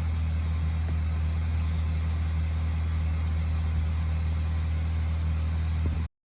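An engine idling steadily, a low even hum that cuts off suddenly near the end.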